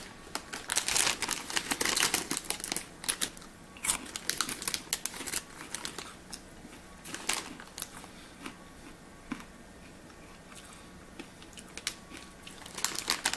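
Popcorn bag crinkling and rustling as popcorn is taken out. It comes in dense bursts at first, thins to sparse small crackles in the middle and picks up again near the end.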